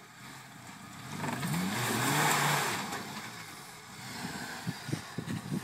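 Suzuki 4x4's engine revving up under load as it crawls over a rock step, the revs climbing and holding for about a second before easing off. Near the end, a run of short crackles and knocks.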